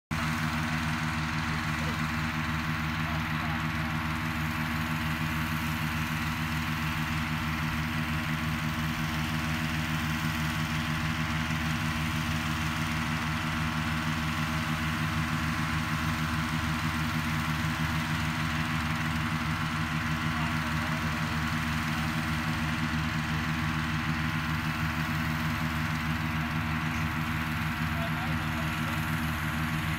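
Petrol-engine inflator fan running steadily at one constant speed, blowing cold air into a hot-air balloon envelope during ground inflation.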